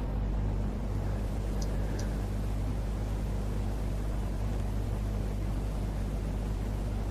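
A steady low hum over an even background hiss, with two faint ticks about one and a half and two seconds in.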